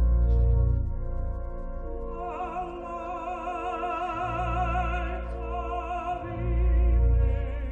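A choir sings a large festival anthem over sustained accompaniment with deep bass notes. Voices with a wide vibrato swell in about two seconds in. It is an old live concert recording.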